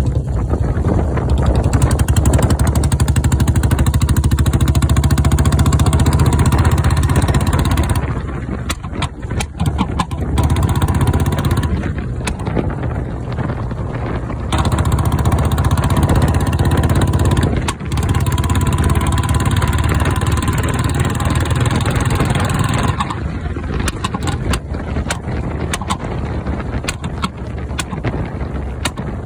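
Royal Enfield Bullet 350's single-cylinder engine and exhaust running while riding, with bursts of sharp crackling pops from the silencer each time the throttle is closed, from about eight seconds in and again near the end. The pops are deliberate 'pataka' backfires made on this fuel-injected bike with a spark plug, which is said to harm the spark plug and the EFI system.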